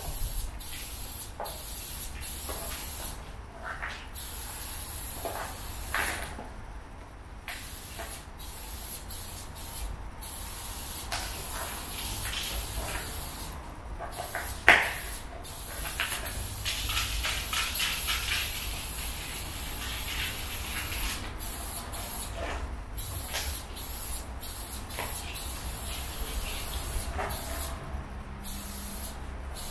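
Aerosol spray paint can hissing in long bursts broken by brief pauses as red paint is sprayed. A single sharp knock about halfway through.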